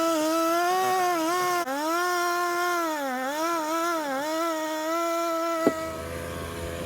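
Gas chainsaw running at high revs and cutting wood, its pitch sagging and recovering several times as the chain bites. Near the end there is a sharp click, and the sound changes abruptly to a lower, steadier drone with a low rumble.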